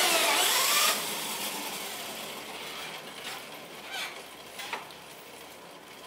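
Battery-powered abaca stripping machine running as a strip of abaca stalk is pulled through its blade. A loud rasping scrape lasts about the first second, then eases to a quieter, slowly fading mechanical running with a few light clicks.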